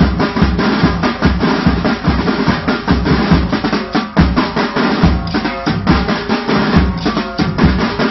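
Pipe band drum corps playing a drum solo: dense, rapid snare drumming with rolls over a steady, regular bass drum beat.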